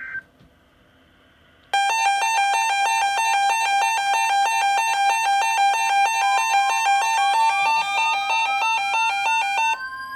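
Weather alert radio's electronic warning alarm, set off by a National Weather Service weekly test: a loud, buzzy beeper switching rapidly between two pitches. It starts about two seconds in, a rising tone glides up through its second half, and the two-pitch beeping cuts off near the end.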